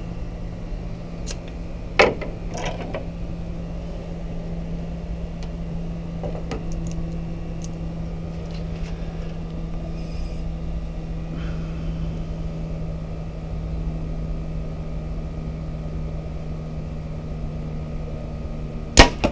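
Compound bow shot near the end: a sudden, very loud double crack as the string is released and the arrow flies. Before it, a steady low machine hum, with a single sharp click about two seconds in.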